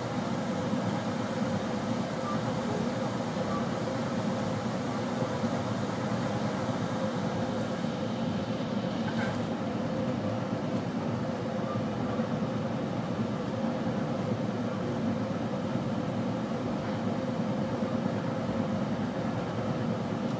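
Amtrak Pacific Surfliner passenger train in motion, heard from inside the passenger car: a steady rumble of the wheels on the rails with a thin steady hum.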